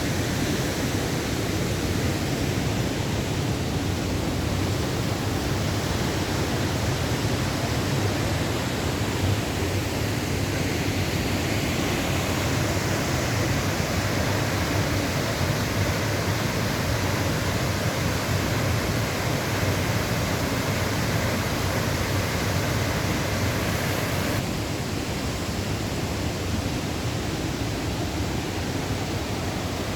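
Steady rush of water from the Upper Düden waterfall on the Düden River, a continuous dense roar. About three-quarters of the way through, the higher hiss drops a little and stays lower.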